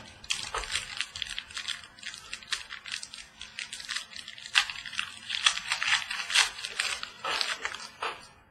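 A trading-card pack's wrapper being torn open and crinkled: a dense, irregular run of crackles and rips that stops shortly before the end.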